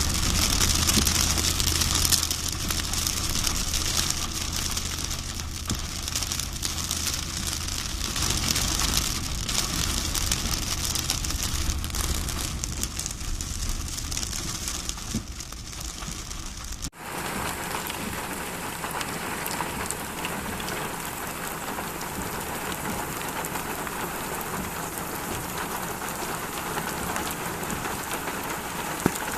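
Steady rain falling, with a low steady hum under it in the first part. About two-thirds of the way through the sound changes abruptly to an even, plain rain hiss.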